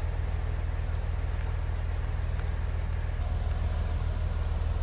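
Diesel engine idling with a steady low rumble and fine even pulsing, under a faint even hiss.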